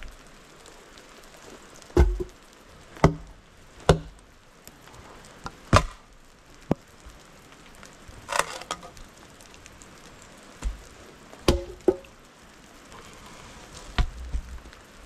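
Wood being chopped or struck: about ten sharp knocks at irregular intervals, some with a short hollow ring, and a drawn-out splintering crack about eight seconds in.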